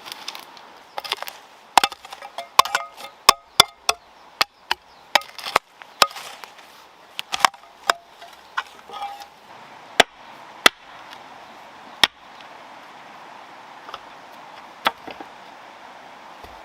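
Chopping: a blade striking wood in sharp, irregular blows, several in quick succession through the first half, then single strikes a second or two apart.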